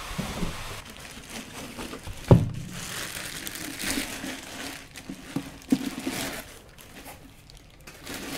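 Clear plastic packaging bag crinkling and rustling as it is handled and pulled off the resin printer's yellow acrylic cover among foam packing, with one sharp thump about two seconds in.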